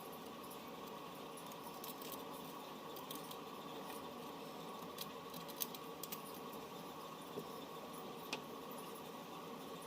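Faint clicks and taps of small repair tools on phone parts over a steady hum, with a handful of sharp clicks in the second half.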